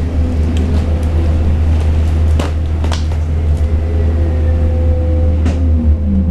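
Electric bus riding, heard from inside the cabin: a steady low rumble with a constant hum and a few sharp knocks, and the drive whine falling in pitch over the last couple of seconds as the bus slows.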